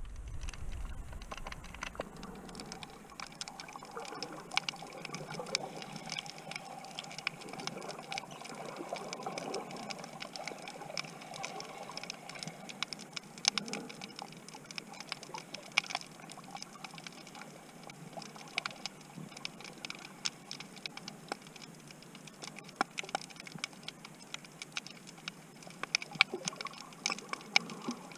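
Underwater sound of a shallow lagoon: a dense, irregular crackle of many small sharp clicks over a faint steady wash of water.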